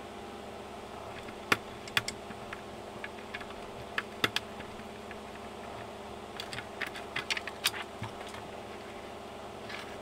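Sharp clicks and taps of a vacuum cleaner's hard plastic housing and wiring being handled and taken apart: a few single knocks in the first half, then a quicker run of them a little past the middle, over a steady background hum.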